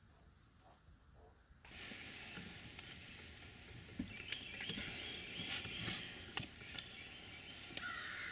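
Outdoor woodland ambience starts suddenly about two seconds in, after a near-quiet start: a steady background hiss with scattered small clicks and crackles. Bird calls come in and out, with a crow-like calling starting near the end.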